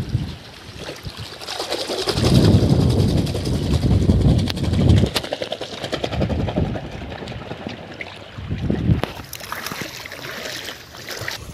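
Hands churning detergent into water in a plastic bucket, sloshing and splashing as it foams up. The splashing is heaviest from about two to five seconds in, with another burst a little before the end.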